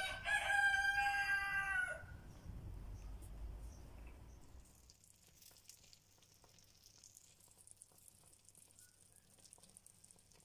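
A rooster crows once, a long call of about two seconds at the start. After it there is only a faint low rumble that dies away by about five seconds in.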